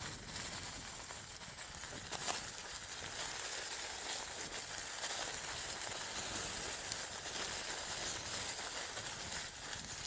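Mongoose Tyax mountain bike rolling over a dirt track strewn with dry leaves: a steady crackling hiss from the tyres, with a few short knocks from bumps, the first about two seconds in.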